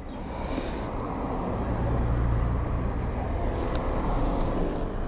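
A car driving slowly past close by, its low engine hum swelling about a second and a half in and fading near the end.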